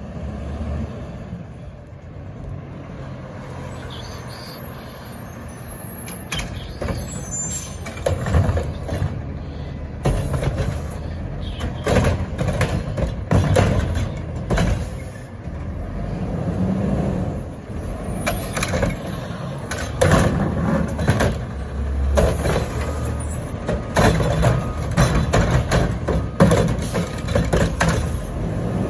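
Front-loader garbage truck with a Curotto-Can cart-lifting arm working at the curb. Its diesel engine runs steadily, and from about a third of the way in there are repeated clanks and knocks from the arm and carts, mixed with air-brake hisses.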